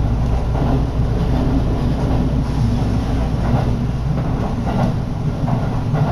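Steady rumble of a moving local electric train heard from inside the carriage: wheels running on the rails, with a few faint clicks over the rail joints.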